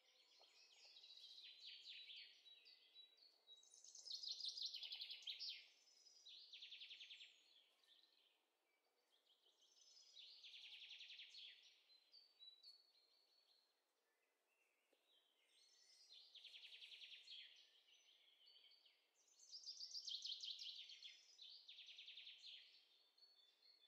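Faint birdsong: a small bird singing short, rapid trilled phrases again and again, with pauses of a second or more between them.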